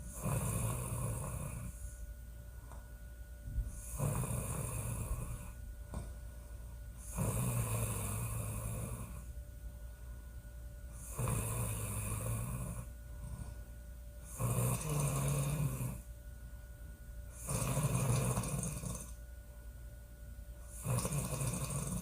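A woman snoring loudly in regular breaths, one snore about every three and a half seconds, seven in all.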